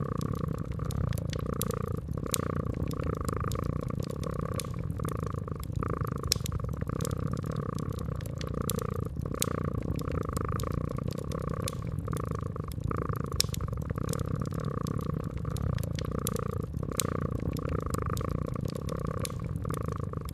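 A cat purring steadily, the purr swelling and fading in an even rhythm, over a wood fire crackling with scattered sharp pops.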